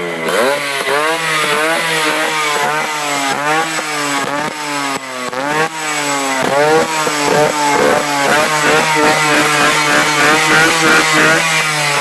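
Two-stroke motorcycle engine being blipped hard and repeatedly, its pitch jumping up and dropping back about twice a second, over a steady lower drone.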